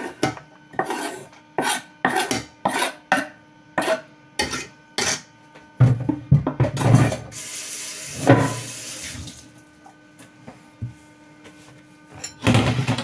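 Knife blade scraping and tapping chopped coriander and parsley off a wooden cutting board into a stainless steel pot, a quick run of sharp scrapes about two or three a second. After about six seconds come heavier knocks and a scrape as the board is struck against the pot's rim, with one more knock near the end.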